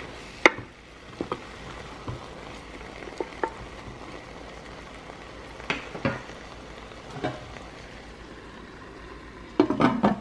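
Seared beef chunks and red wine sizzling in the hot Instant Pot cooking pot as the wine deglazes it, with a wooden spoon stirring and knocking against the pot a handful of times. Just before the end comes a quick clatter as the glass lid is set on.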